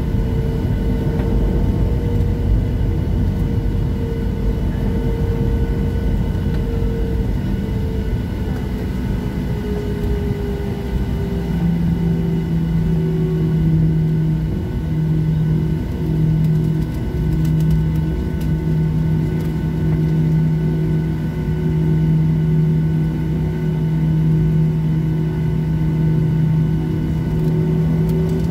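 Cabin noise inside a Boeing 737-700 taxiing, its CFM56-7B engines at taxi power giving a steady rumble. About a third of the way in, a low hum comes in and pulses on and off.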